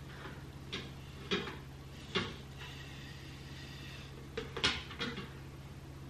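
A handful of light, scattered clicks and knocks from a ceramic-plated flat iron being handled as it clamps and twists a strand of hair, over a faint steady hum.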